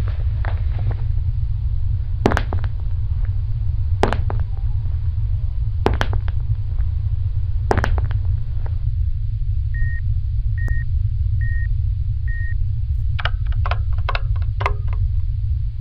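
Steady low rumbling drone, with a sharp knock about every two seconds through the first half. Then come four short high electronic beeps, just under a second apart, and a quick run of clicks near the end.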